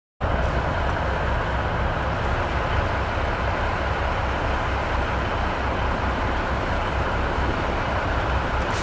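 GE diesel switcher locomotive's engine idling: a steady low rumble with an even beat.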